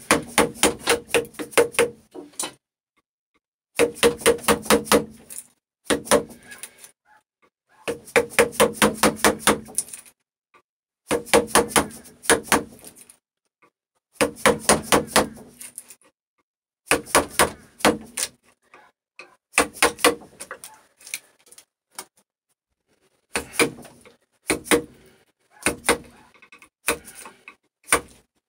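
Dead blow hammer striking a bench chisel in quick little taps, chopping waste out of a hardwood lap-joint notch. The taps come about six a second in runs of one to two seconds with short pauses between.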